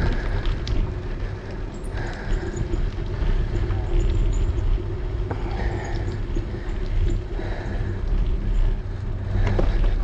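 Steady low rumble of wind buffeting and tyre noise on a bicycle-mounted GoPro's microphone as the bike rolls along pavement, with scattered light clicks and rattles.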